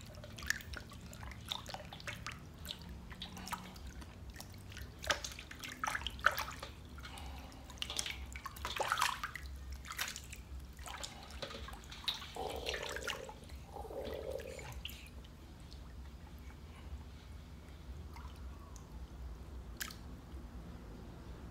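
Water splashing and dripping in a stainless steel basin as hands scrub a baby monkey being bathed. The splashes come in irregular bursts and become fewer and fainter over the last several seconds, once the monkey is left paddling in the water.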